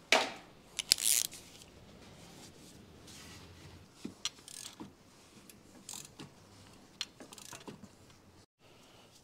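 Hand tools clicking and clinking against metal parts in a car's engine bay: a sharp clank right at the start and a brief clicking rattle about a second in, then scattered lighter clicks.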